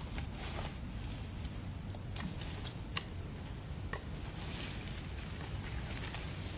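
Insects buzzing in one steady, unbroken high-pitched tone, with scattered crackles and snaps of dry leaf litter and twigs as a person steps and works among them.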